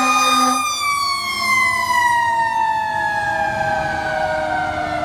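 Fire engine siren winding down, its pitch falling slowly and steadily over several seconds. A low pulsing tone underneath cuts off about half a second in.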